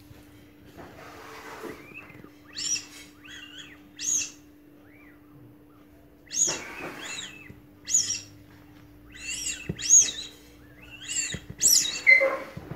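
Rubber balloon squeaking as small hands rub and squeeze it: about ten short, high squeaks, each rising and falling in pitch.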